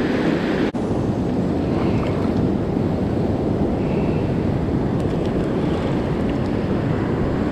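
Ocean surf washing up a beach with wind buffeting the microphone, a steady low rush. The sound drops out for an instant just under a second in.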